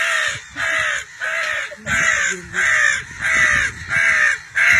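A man's mimicked crow caws, a steady series of harsh 'kaa' calls nearly two a second, given to draw real crows in.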